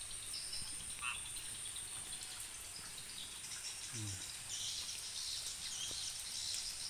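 A steady, high-pitched drone of crickets and other insects, with frogs calling now and then over it, a short call about a second in and another around four seconds.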